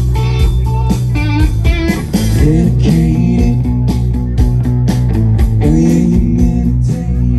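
Live rock band playing loudly: electric guitar lead over a steady bass line and beat, with sliding guitar notes about two seconds in and again near six seconds.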